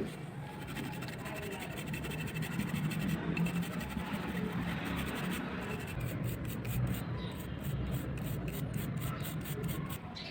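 A sharp click, then scratching and rubbing of hand work on the rusty alarm clock's parts. The strokes turn quicker and more regular in the second half.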